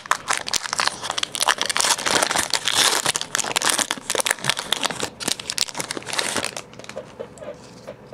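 Foil Pokémon booster pack wrapper being torn open and crinkled in the hands, a dense run of crackling that dies down about six and a half seconds in.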